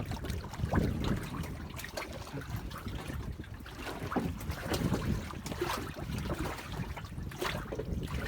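Sea water sloshing and splashing against a small fishing boat's hull, with wind buffeting the microphone.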